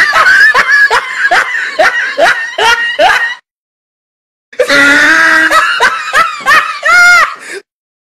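Comic laughing sound effect: a high-pitched laugh in rapid rhythmic "ha-ha" pulses, heard in two bursts with about a second of silence between them, the second ending in a couple of squealing shrieks.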